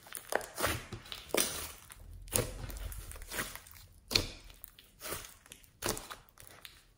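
Hands kneading and pressing a large mass of thick slime mixed with clay, giving a run of irregular squelches and sticky pops, the sharpest about four seconds in.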